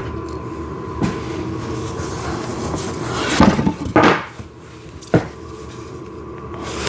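Wooden train-table panels being handled and set down: four knocks, the loudest about four seconds in, with some rustling between them.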